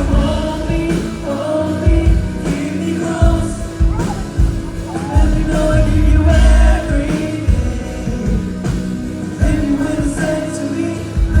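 Live pop-rock band playing a song with a man singing lead over a heavy drum beat.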